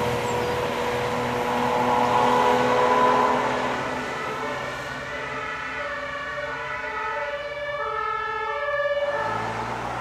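A Technisches Hilfswerk rescue truck driving away, its engine and tyre noise fading. From about five seconds in, a German two-tone Martinshorn siren alternates steadily between two pitches, then cuts off suddenly near the end.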